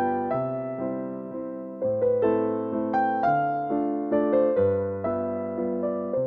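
Gentle background piano music: chords and notes struck every half second or so, each fading away.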